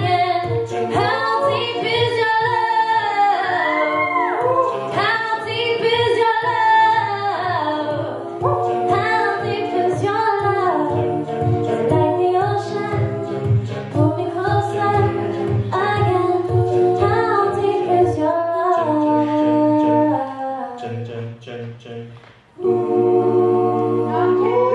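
A cappella group singing: female lead voices over backing voices, with a sung bass line and a steady vocal-percussion beat. About 20 seconds in the sound thins out and nearly drops away, then the full group comes back in about two seconds later.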